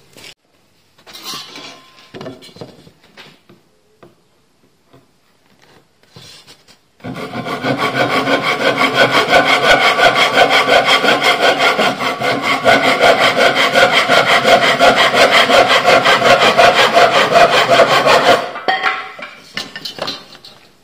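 A fine-toothed handsaw cutting through a thin wooden batten with quick, even back-and-forth strokes, starting about seven seconds in and stopping shortly before the end. Before the sawing there are a few light knocks of wood being handled.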